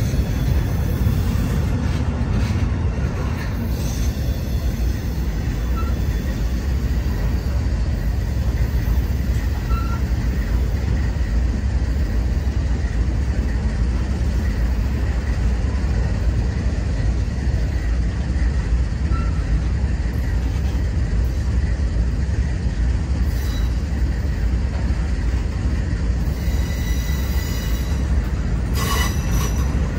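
Double-stack intermodal freight train's well cars rolling past close by: a steady, heavy rumble of steel wheels on rail, with a faint high wheel squeal near the end.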